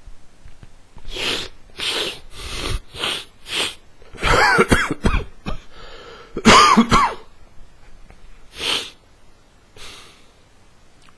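Person with a heavy head cold blowing a stuffy nose: a run of short, quick blows, then two long honking blows, the second the loudest, then a couple of short ones trailing off.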